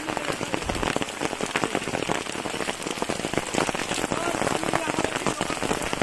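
Heavy rain falling steadily, a dense run of individual drops striking close by over a constant hiss.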